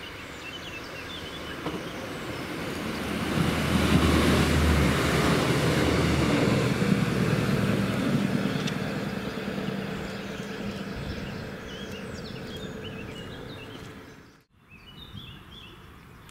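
A diesel regional train approaching and passing close by, its engine and wheel noise swelling to a peak about four seconds in, holding a steady engine tone and then fading away. Birds chirp faintly before it arrives and after it has gone.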